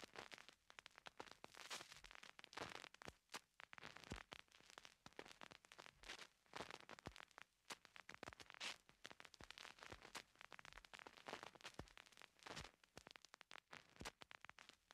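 Faint, dense irregular crackling with scattered clicks and pops.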